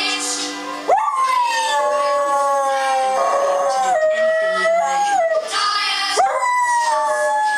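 Husky howling along to a TV commercial's song: two long howls, each beginning with a quick upward slide, about one second and about six seconds in, then held and slowly falling in pitch.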